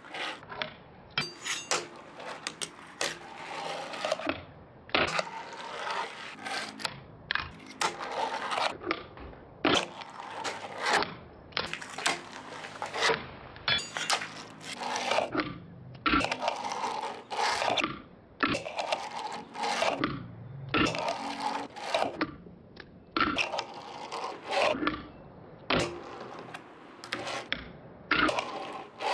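A fingerboard skated on a wooden table: its small wheels roll and scrape across the wood, with repeated sharp clacks as the board pops, flips and lands, and grinds along a metal rail.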